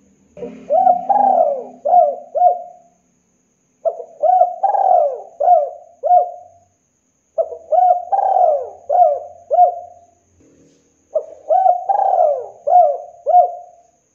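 Spotted dove cooing: four repeated coo phrases a second or so apart, each a run of about five notes.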